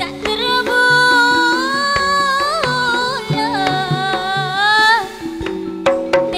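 A woman singing a long, ornamented gending phrase with sliding held notes into a microphone, over a gamelan with hand-drum strokes and steady metallophone notes. The voice stops about five seconds in, leaving the instruments, and comes back just before the end.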